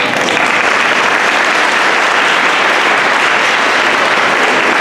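Audience applauding steadily, starting right as the guitar music stops.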